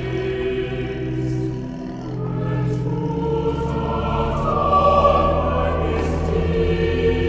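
Choral music with long held notes, swelling to its loudest about five seconds in.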